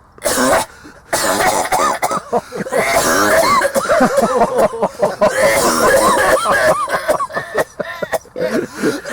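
A man forcing a long, deliberately exaggerated coughing fit: a short cough about a quarter second in, then from about a second in an unbroken run of loud, rasping, strained hacking coughs.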